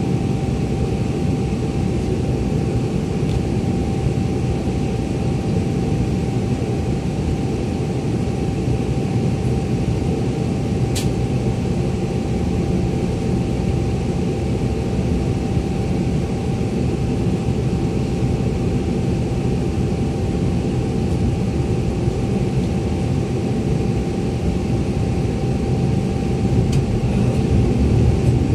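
City bus engine idling, heard from inside the cabin: a steady low rumble with a faint constant whine above it and a single sharp click about 11 seconds in. Near the end the engine grows louder as the bus pulls away.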